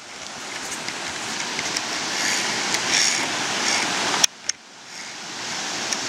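Rushing water of a forest stream, a steady noise that rises at the start, breaks off with a click a little over four seconds in, and swells back up.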